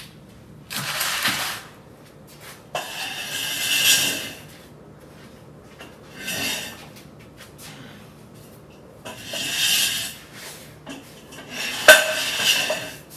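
Steel connecting bar of a car-body rotisserie being worked into place underneath, metal scraping and sliding on metal in five separate pushes, with a sharp metal clank near the end.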